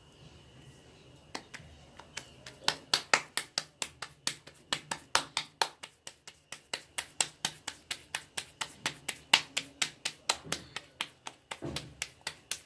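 Stuffed wheat-dough kachori being patted flat between the palms: quick, sharp slapping pats, about four a second, starting about a second and a half in.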